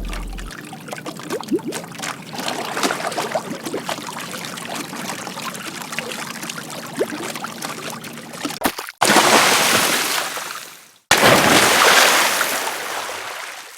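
Water trickling and dripping in many small plinks for about nine seconds, then two separate loud rushes of splashing water, each about two seconds long, fading out and cut off sharply.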